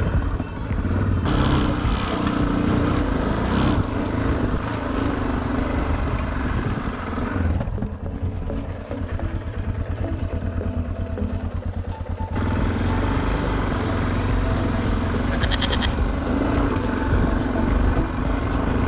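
Yamaha Ténéré motorcycle engine running at low speed while riding. For a few seconds in the middle the engine's even pulses stand out, then the fuller sound returns suddenly. A brief high-pitched sound is heard about fifteen seconds in.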